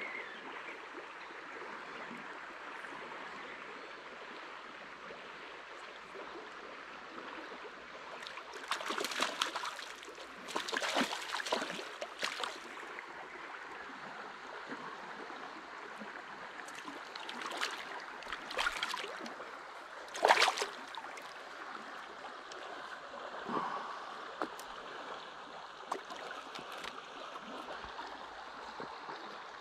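Spring creek water flowing steadily, with several short bursts of splashing from a hooked trout thrashing at the surface; the loudest splash comes about twenty seconds in.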